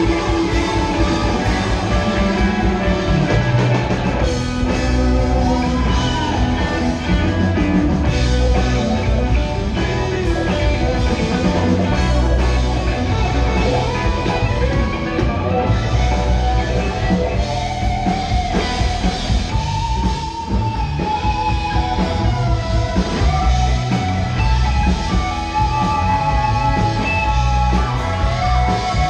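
Live rock band jamming: electric guitar, bass, drum kit and keyboards playing loudly, with a held, gliding lead line over the band in the second half.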